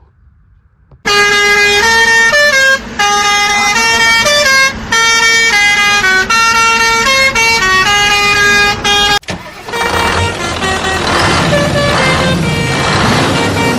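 A loud horn-like tune of short stepped notes starts about a second in, like a musical vehicle horn. About nine seconds in it gives way to a noisier vehicle sound with a wavering low tone, while notes of the tune continue.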